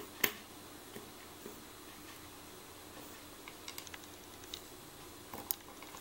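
Light clicks and ticks of metal tweezers and small brass lock pins being handled on a wooden pin tray. One sharper click comes just after the start, then scattered faint ticks, a few in quick succession near the middle.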